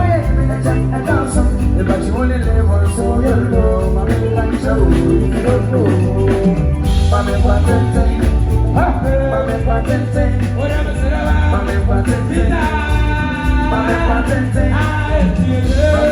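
Live band playing an upbeat song: a heavy bass line and steady drum beat under melodic instrument lines, with no break.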